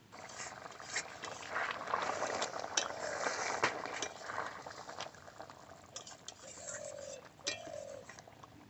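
Metal utensils clinking and scraping against cookware, a busy run of sharp clicks over a hiss that thins out after the middle. A dove coos twice near the end.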